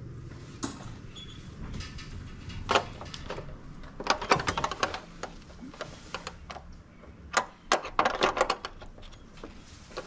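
Irregular clicking and rattling as a wiring harness in corrugated plastic loom and its connectors are handled and routed by hand, coming in several short clusters.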